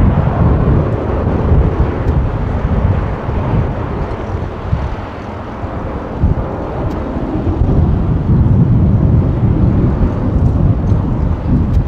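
Twin-engine jet airliner's engines running at high power as it rolls down the runway: a loud, deep rumble that eases a little midway and builds again toward the end, mixed with wind buffeting the microphone.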